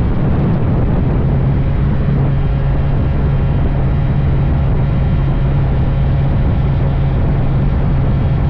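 Honda Dash 125's single-cylinder two-stroke engine running at a steady speed on the move, a constant low drone.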